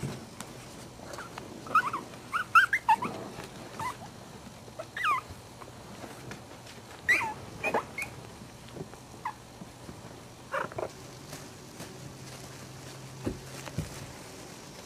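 Young terrier puppies squeaking and yipping as they play-fight: short, high, sliding squeaks in quick clusters, thinning out toward the end.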